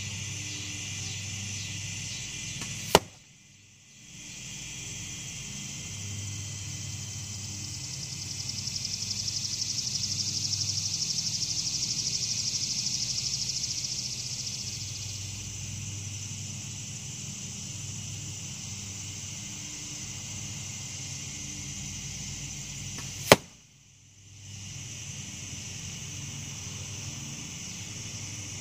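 Two arrows tipped with knock-off Carbon Express mechanical broadheads hitting a foam broadhead target, each a single sharp hit, about 20 seconds apart. A steady high-pitched background buzz runs underneath and swells for a few seconds in the middle.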